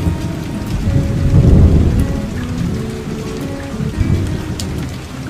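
Steady rain with rolling thunder that swells about a second in and again around four seconds. Soft plucked guitar notes run underneath.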